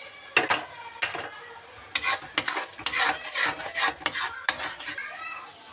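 Slotted metal spoon stirring and scraping a thick tomato-onion masala with freshly added ground spices around a metal kadai: a quick run of scraping strokes, about two or three a second, that stops near the end.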